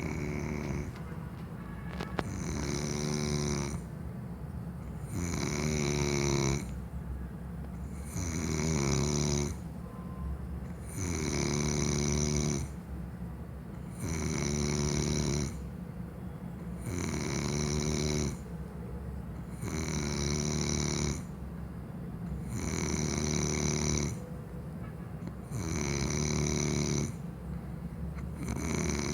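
Snoring in a slow, regular rhythm: a buzzing snore about every three seconds, each lasting about a second and a half, with quieter breathing between.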